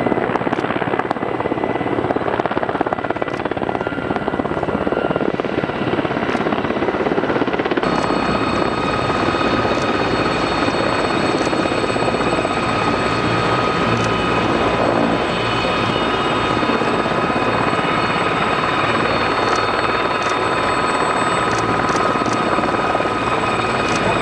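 Mil Mi-17 helicopter's rotor beating as it flies low overhead. About eight seconds in, it changes to the helicopter close by on the ground, its twin turboshaft engines giving a steady high whine over the turning rotor.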